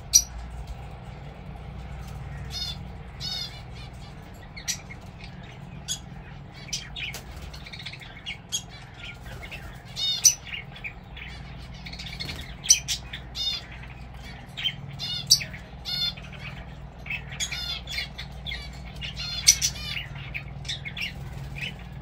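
Lovebirds in an aviary calling: many short, shrill chirps and squawks scattered throughout, a few of them sharper and louder than the rest.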